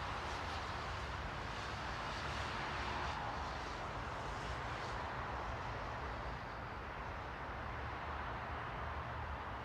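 Steady white-noise ambience: an even rushing hiss over a low rumble, with no distinct events, a little brighter in the first half.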